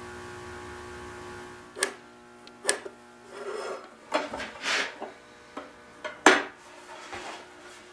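A steel straight edge handled on a wooden table top: a few sharp metallic clicks as it is set down and shifted, between short scratchy rubbing and marking strokes along the rule.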